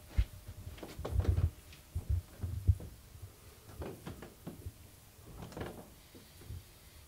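Footsteps climbing carpeted wooden stairs: dull, uneven thuds about a second apart.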